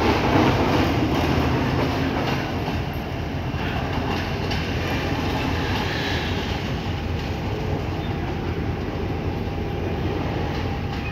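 Rail motor trolley's diesel engine running as it pulls away down the track, with wheels clicking over the rail joints. It is loudest at first and settles into a steady low engine drone.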